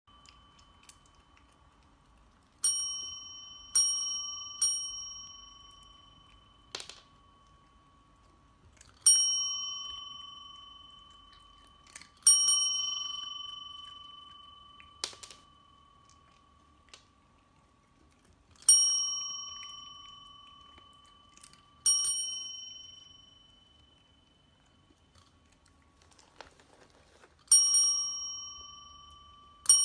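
Chrome desk bell (service bell) dinged about nine times at uneven intervals, three in quick succession about three seconds in, each ring fading slowly over a few seconds. The cats ring it to ask for food.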